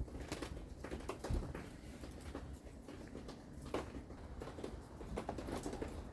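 Light scratching, rustling and scattered small taps of hands working potting soil and succulent plants while repotting, one slightly louder tap about a second in.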